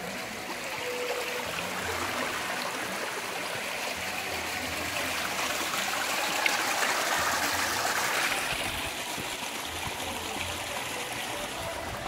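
Shallow mountain stream trickling over rocks in a stone-lined channel. It is a steady rush of water that grows louder in the middle and eases off near the end.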